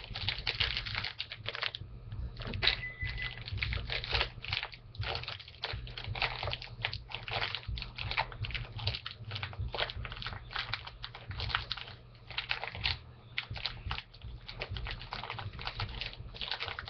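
Packaging being handled close to the microphone, crinkling and rustling in quick, irregular crackles over a steady low hum.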